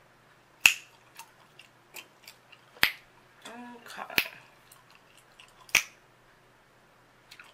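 Chewing gum cracking and snapping in the mouth: four loud, sharp pops about a second and a half apart, with fainter wet clicks between them.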